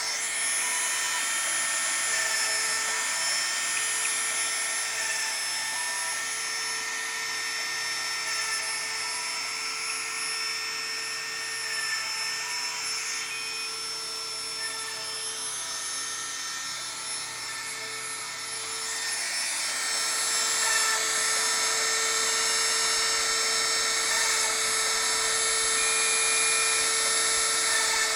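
Dremel rotary tool running at high speed as a CNC mill spindle, drilling through holes in a copper-clad circuit board: a steady whine with several high tones, with short brief tones coming and going over it. It grows fainter in the middle and louder again about two-thirds of the way in.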